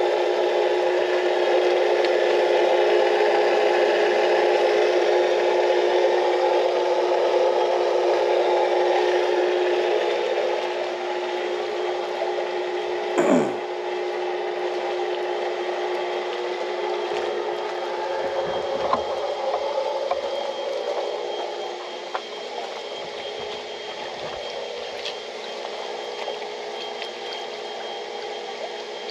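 Intex pool filter pump running steadily with water circulating, a hum with a few fixed tones that grows quieter in two steps, about a third and three quarters of the way through. A short sound falling in pitch comes a little under halfway through.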